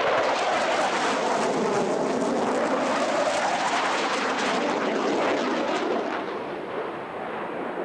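Jet noise from a Panavia Tornado's twin RB199 engines at high power as it banks through a display turn: a loud, steady roar with a crackle through it that fades about six seconds in.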